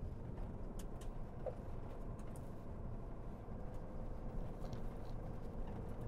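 Steady low rumble of a Ford pickup truck driving on a dirt farm track, heard from inside the cab, with a few faint clicks and rattles.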